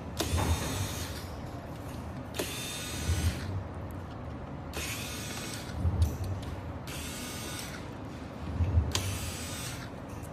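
A small motor-driven mechanism whirring in repeated bursts of about a second, five times, roughly every two seconds.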